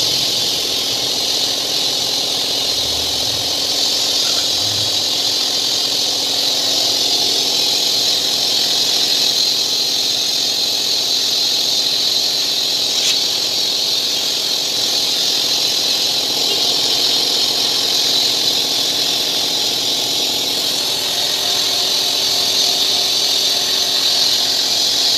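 Pressure-washer jet spraying a foamed truck cab and windscreen: a steady loud hiss of water, with a steady engine hum underneath.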